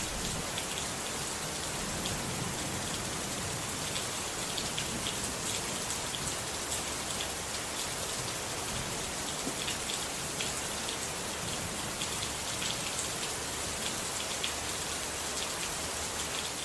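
Steady rain falling on a surface, an even hiss with many small, sharp drop ticks.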